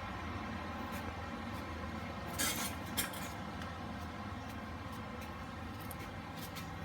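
A few light metallic clinks from metal tools and parts being handled, a short cluster about two and a half seconds in and one more sharp clink at three seconds, over a steady low hum.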